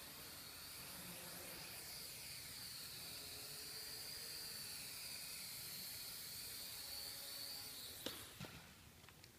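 Blade 180 QX micro quadcopter's motors and propellers whining faintly in flight, the pitch wavering a little as the throttle changes. About eight seconds in the whine stops and two sharp clicks follow as it touches down on the wooden floor.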